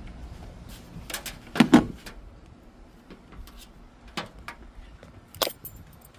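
A few handling knocks and clicks: a loud double clunk about a second and a half in, then two sharper clicks about four and five and a half seconds in, over a low rumble of wind.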